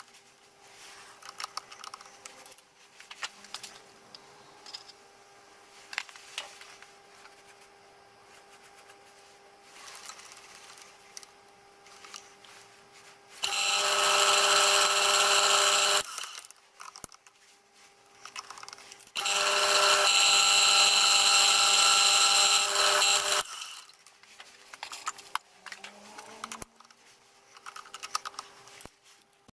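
Milling machine drilling the fixing holes in a steam-cylinder end cover. Two loud spells of drilling, of about two and four seconds, come about halfway through. Quieter stretches of clicks and knocks surround them as the chuck and rotary table are turned by hand.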